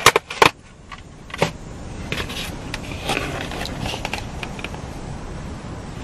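A few sharp clicks and rustles of a foam takeout container being handled in the first second and a half, then a steady rushing background noise.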